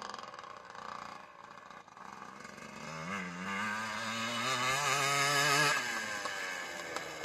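Yamaha Blaster ATV's two-stroke single-cylinder engine revving as the quad rides past. Its note rises in pitch about three seconds in, is loudest from about four to six seconds, then falls away as the rider eases off.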